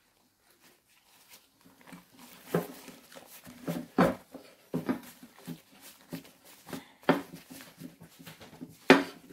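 Nitrile-gloved hands rolling and pressing a filled tortilla wrap on a ceramic plate: an irregular run of short rustles, squeaks and knocks, the loudest about four seconds in and near the end.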